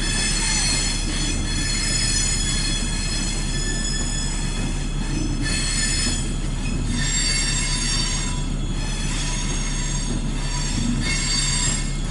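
Electric train running, a steady low rumble with a continuous high-pitched squeal of several held tones over it.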